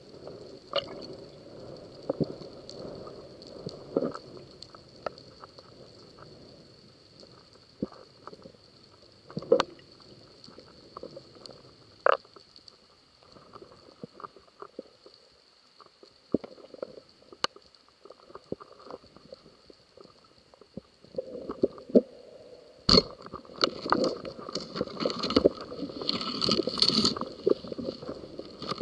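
Underwater sound heard through a camera housing on a breath-hold spearfishing dive: a muffled low rumble with scattered sharp clicks and knocks. Near the end there is one loud knock, then a louder stretch of rumbling and knocking.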